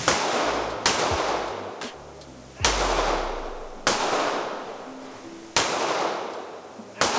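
Handgun fired six times at a slow, uneven pace, a second or more between shots, each shot followed by a long echo that fades off in an indoor shooting range.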